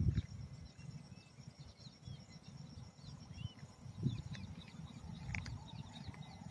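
Many short bird chirps over a steady high insect drone. Underneath is a low, uneven rumble that swells at the start and again about four seconds in.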